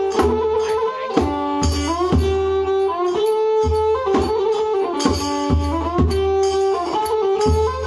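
Kantrum mahori ensemble playing an instrumental passage: a bowed fiddle carries a sliding melody over struck wooden-xylophone notes and a steady low drumbeat from a barrel drum.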